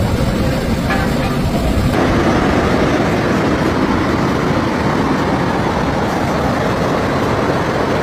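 Fast-moving floodwater rushing down a street: a loud, steady, dense rush that changes in character about two seconds in.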